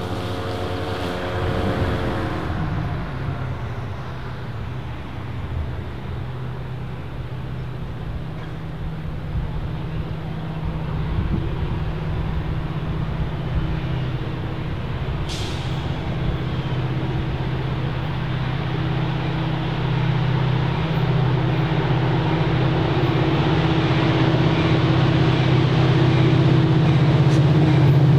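Diesel locomotive engine running with a steady low drone, growing louder as the train draws nearer. A short high hiss comes about fifteen seconds in.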